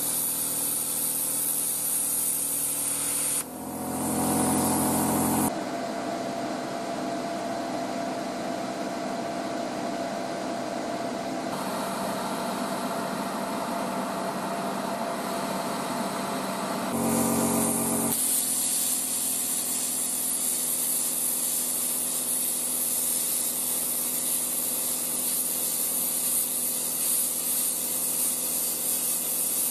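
Parkside PPSK 40 A1 plasma cutter with built-in compressor cutting steel plate: the loud, steady hiss of the air-plasma arc at the start, and again from about eighteen seconds on through thicker 8 mm plate. In between, the cutting hiss stops and a steadier, lower running sound with a held tone takes its place.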